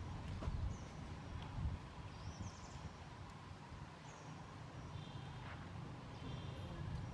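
Quiet outdoor background: a steady low rumble with a few faint, high chirps from distant birds scattered through it.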